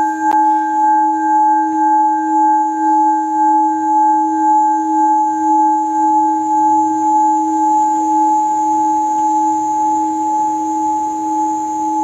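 Crystal singing bowl held ringing in a sustained tone of several pure pitches, its loudness wavering in a slow, even pulse. A faint tap sounds just after the start.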